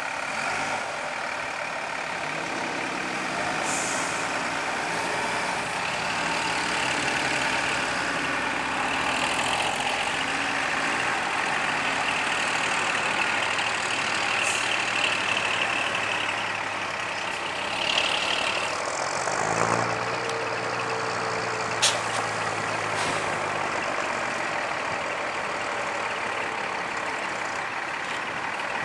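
Vintage diesel buses moving off and driving past one after another, engines running steadily, with short hisses of air near the middle and a single sharp click a little later.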